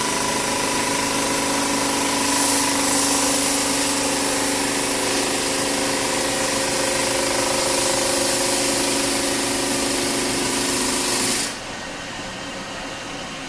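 Floor sander running on a hardwood floor, a loud steady motor whine with grinding noise from the sandpaper. The noise drops off sharply near the end, leaving a quieter hum.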